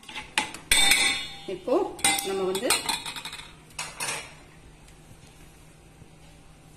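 A metal fork clinking and scraping against a stainless steel bowl as it stirs apple puree and butter, then the clatter of a wire-mesh sieve being set on the bowl. The clatter stops about four seconds in.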